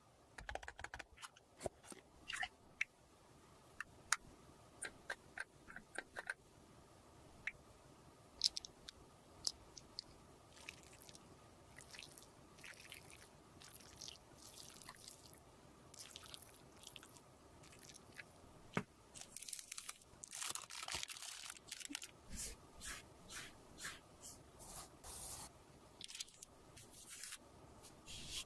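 Close-miked handling of cosmetics for repair and mixing: scattered sharp clicks and taps at first, then a run of short, soft scraping and squishing strokes, about one a second toward the end, like a spatula working a makeup paste.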